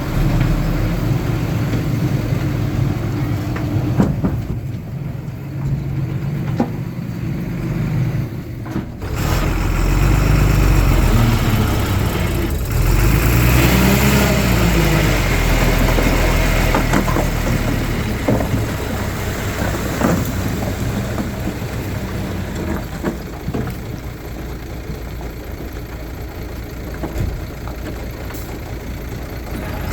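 Heavy diesel earthmoving machinery running: the engine grows louder about nine seconds in and its pitch rises and falls as it works under load, with occasional short knocks and clanks.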